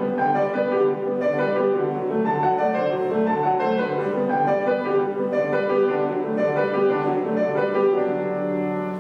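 Solo piano playing a classical piece, a continuous flow of notes.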